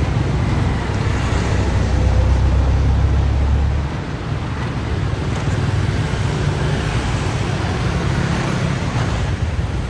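Street traffic with motorbikes and scooters riding past. A heavy low engine rumble dominates the first four seconds, then drops away, leaving a steady traffic hum.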